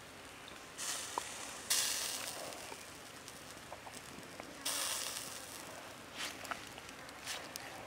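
Chicken thigh grilling on a bamboo spit over charcoal embers: juices sizzle in three brief hissing bursts that flare up and fade, the strongest about two seconds in, while the spit is turned. A few light clicks come from the bamboo in its forked supports.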